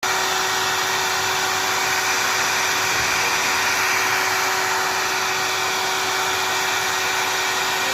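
Hair dryer running steadily: a constant rush of air with a steady motor tone beneath it.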